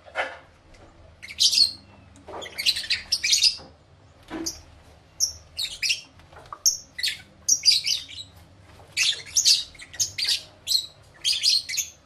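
Caged lovebirds calling: shrill, squeaky chirps in short bursts, one after another with brief gaps between.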